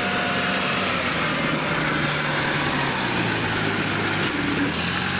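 Engine of a small tracked rice-hauling carrier running steadily as it crawls along, loaded with sacks of rice; its pitch shifts a little a few times.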